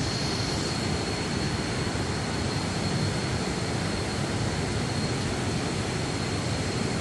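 Steady rush of falling water from a waterfall, with a thin, steady high whine over it.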